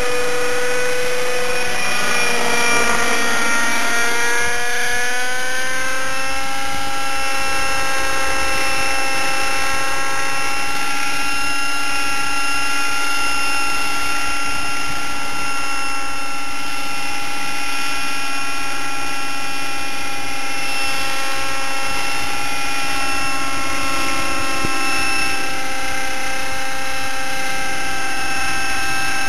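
T-Rex 600 Nitro Pro radio-controlled helicopter in flight, its OS 50 Hyper two-stroke glow engine with a Hatori performance muffler running loud and steady. The pitch dips and then climbs a few seconds in, then holds level.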